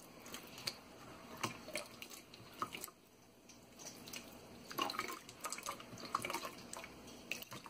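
Faint trickle of limewater poured in a thin stream from a glass measuring jug into a steel mixing bowl, with irregular small drips, splashes and squelches as a hand squeezes the rice-flour dough loose in the liquid.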